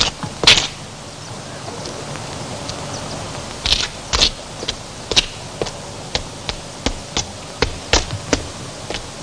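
Hurried footsteps over a steady hiss. There are two loud steps about half a second in, then a regular run of two to three steps a second from about four seconds on, as the walker heads up wooden stairs.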